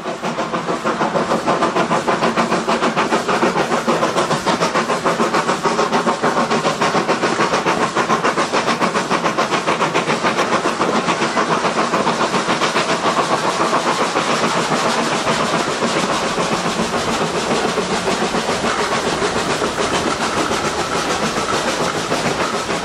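Steam tank locomotive working hard, its exhaust coming in a fast, even run of beats, heard from an open carriage window just behind it.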